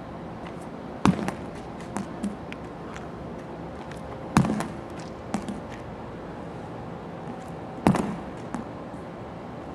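Medicine ball slammed down hard onto concrete three times, about three and a half seconds apart, each slam followed by one or two smaller bounces.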